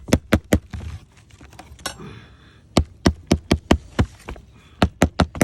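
Hammer driving nails into a wooden roof shake: three quick runs of sharp blows, about four or five a second, with a short scrape about two seconds in.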